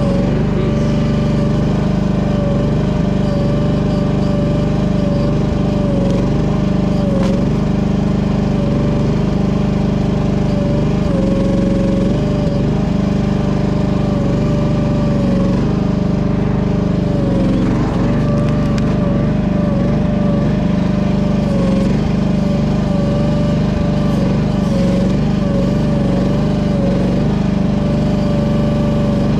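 Small engine of a cheap Chinese mini excavator running steadily, with a high whine that dips and recovers again and again.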